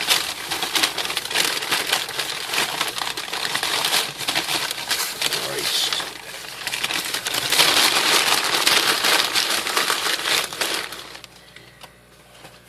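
Parcel packaging crinkling and tearing as it is unwrapped by hand: continuous rustling and crackling that stops about eleven seconds in.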